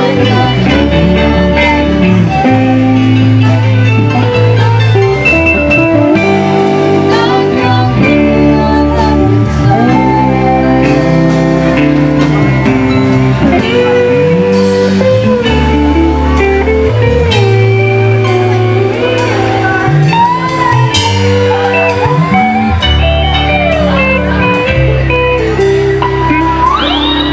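Live rock band playing: electric guitar over drums and cymbals, with singing.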